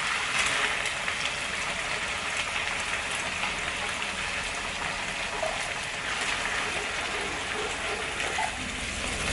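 Steady sizzling of onion, garlic and tuna frying in a non-stick pan while tomato soup is poured in, with a spatula starting to stir near the end.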